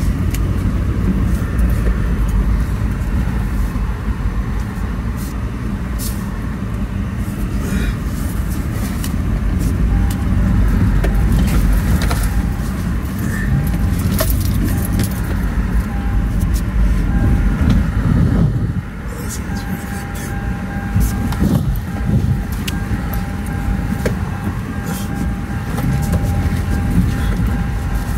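Off-road vehicle's engine running under load as it drives through mud holes with the traction control off, heard from inside the cab. There is a heavy low rumble, with frequent knocks and clunks from the body and suspension jolting over the rough, muddy track.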